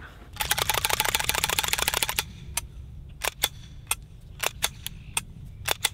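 Rapid rattling clicks for about two seconds, then sharp clicks, singly and in quick pairs, from a SAR9 X 9mm pistol being handled and its action worked after a rinse in water to clear out mud.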